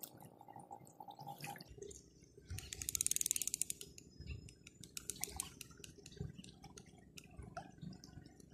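Faint small splashes and drips of lake water lapping at the shore, with a quick run of sharp clicks, about ten a second for roughly a second, about three seconds in.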